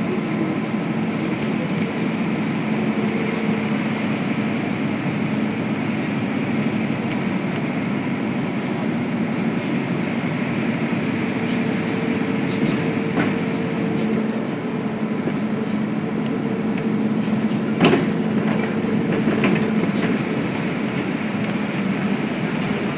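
Inside a moving city bus: the engine's steady drone with road and tyre rumble. A few sharp knocks and rattles come through the cabin, the loudest about three-quarters of the way through.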